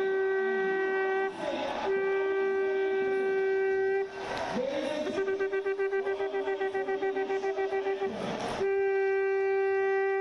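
A conch shell blown in four long notes at one steady pitch, with short breaks between them; the third note wavers rapidly, about ten pulses a second.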